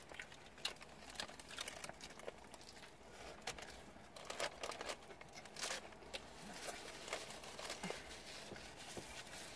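Faint rustling and crinkling of a paper sandwich wrapper, with soft scattered clicks as a sandwich is handled and bitten into.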